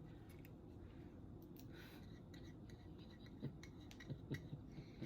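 Near silence with a few faint, small clicks and taps, mostly in the second half: craft pieces being handled on a table.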